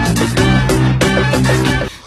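Background music with a steady drum beat and bass line, cutting off suddenly near the end.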